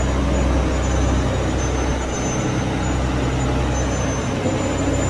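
Fishing boat's engine running at a steady speed, a constant low hum.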